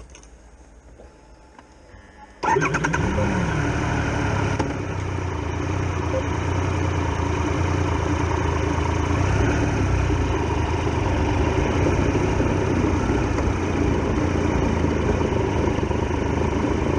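Triumph Tiger Explorer XRx motorcycle's three-cylinder engine starting about two and a half seconds in, with a brief rev. It then runs steadily and grows a little louder as the bike pulls away.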